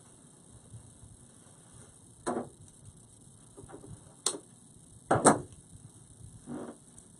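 Artificial flower stems being handled and arranged: a few short rustles and knocks, with a sharp click about four seconds in and the loudest pair of knocks about a second later.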